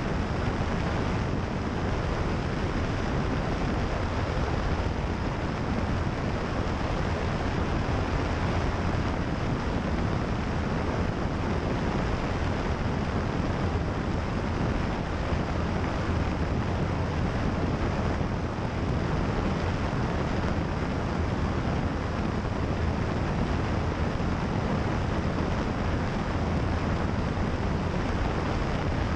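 Steady rush of wind over the microphone mixed with the steady drone of a light single-engine propeller plane's engine and propeller in flight.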